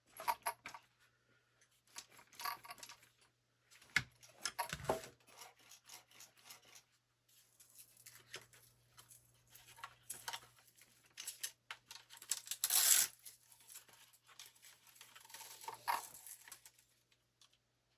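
Hands handling an RC truck and its parts: irregular rustling, scraping and light clicks, with a louder scrape about two-thirds through.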